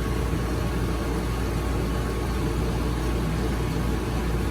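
Steady low mechanical hum, even and unchanging, with a faint thin tone above it.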